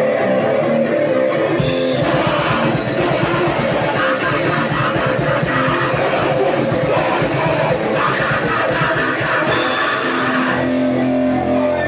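Live heavy band playing loud, distorted music. A guitar plays alone at first, the full band with fast drumming comes in after about a second and a half, and near the end the drums stop, leaving held guitar and bass notes ringing.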